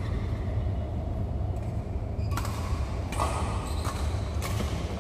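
Badminton rackets striking a shuttlecock: a sharp hit about two and a half seconds in and another near the end, over a steady low rumble.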